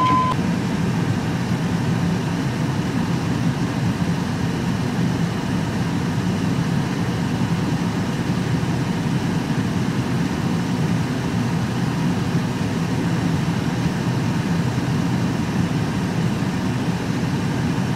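Pickup truck engine idling steadily, heard from inside the cab.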